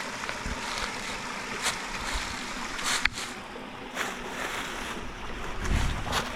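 Creek water running steadily, with a few sharp clicks scattered through it and a low rumble that comes in near the end.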